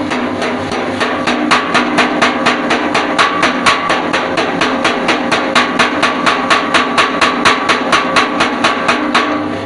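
Mechanical power hammer striking in a fast, even rhythm, about five blows a second, each blow with a metallic ring. The blows stop near the end.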